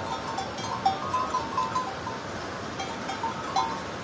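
Small bells on a herd of goats clinking irregularly as the animals walk. The short ringing notes come at a few different pitches, with a sharper strike about a second in and again near the end.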